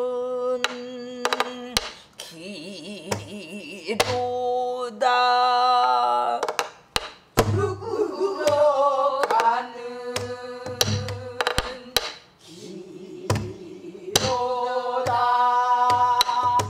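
Woman singing pansori in a strained, full voice with wide, wavering vibrato, accompanying herself on a buk barrel drum: scattered sharp stick strokes and dull hand thumps between and under the sung phrases.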